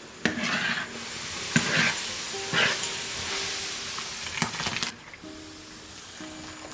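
Food sizzling in a hot pan as it is stirred, with a few sharp stirring strokes. The sizzle starts suddenly and cuts off about five seconds in.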